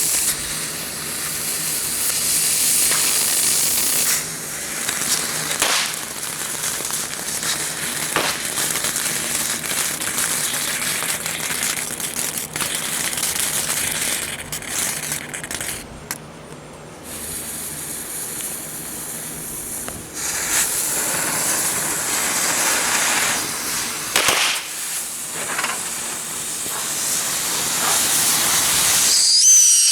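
Ground fireworks burning with a loud, steady hiss and spray, with a few sharp pops scattered through and short lulls. Whistling fireworks start near the end.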